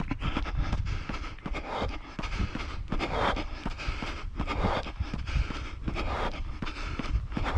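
Running footfalls on a packed dirt and gravel path, heard through a body-worn camera as a quick, even run of short strikes over a steady low rumble, with the runner's breathing swelling every second or so.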